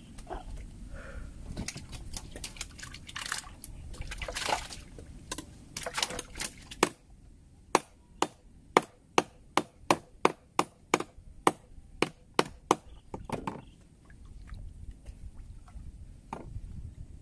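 Water splashing and sloshing as a person moves chest-deep in a river, then a quick run of about a dozen sharp knocks, roughly two to three a second, that stops after about five seconds.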